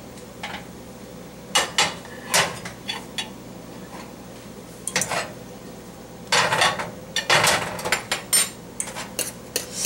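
Irregular clinks and knocks of cookware: a metal lid lifted off a stainless saucepan and a plate set down on the stovetop, with a short run of clattering about six to seven seconds in.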